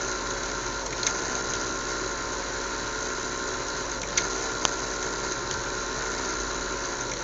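Small fischertechnik electric motors spinning propellers, a steady whirring drone, with a few sharp clicks about a second in and twice around four seconds in.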